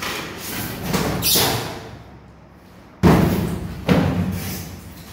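Cardboard box and foam packing being pulled off a new electric water heater: scraping and rustling of cardboard, then two heavy thumps about three and four seconds in as the packing is dropped or pulled away.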